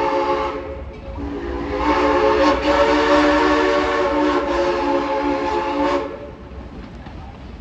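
Steam locomotive's Bently four-chime whistle blowing a chord of several tones: one blast ends just after the start, then after a short break a long blast of about five seconds cuts off sharply.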